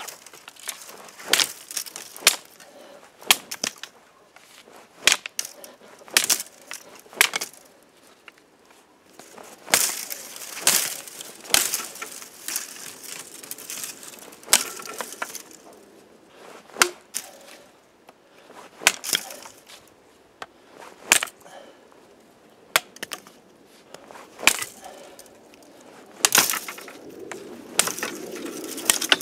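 Mini parang chopping thin shrub stems: sharp cracking chops about every one to two seconds, with stems snapping and twigs rustling between the blows.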